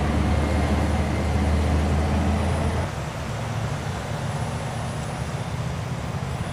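Heavy vehicle engine running with a steady low rumble, loud for about the first three seconds and then easing to a quieter rumble.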